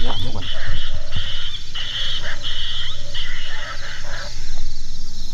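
Predator game call sounding a run of about six short animal cries, each about half a second long and evenly spaced, stopping a little over four seconds in. Insects chirr steadily underneath.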